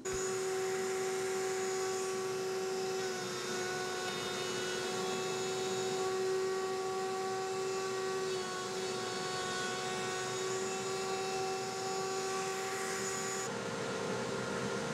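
Electric router mounted in a router table, running at a steady high-pitched whine while a Vera wood plane block is fed along the fence to cut a slot for the screw cap. The sound changes about 13 seconds in, when the higher hiss drops away and a lower tone carries on.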